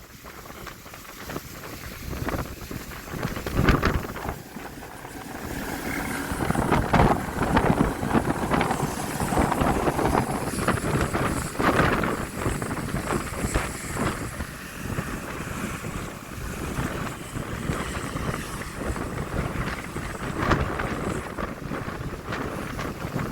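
Hurricane wind gusting hard against the microphone, a rushing rumble that swells and eases in surges and grows stronger about six seconds in.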